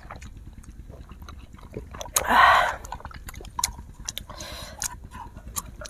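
Close-miked eating sounds: scattered small wet clicks of chewing and mouth noises, with a loud breathy burst about two seconds in and a softer one near the end.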